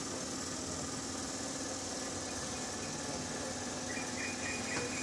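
Diesel train engine idling steadily with a constant low hum. About four seconds in, a high, broken tone starts.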